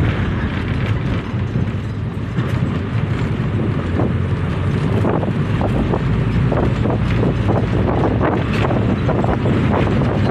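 Wind buffeting the microphone: a steady low rumble and hiss, with frequent crackles in the second half.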